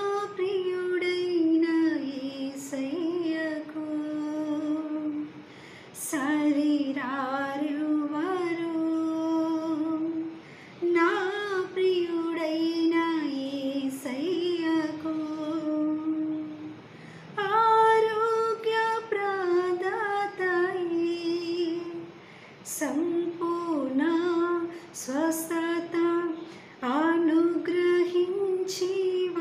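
A woman singing a Telugu Christian hymn (keerthana) solo and unaccompanied, in long held, gliding notes. The phrases run several seconds each, with short breaths between them.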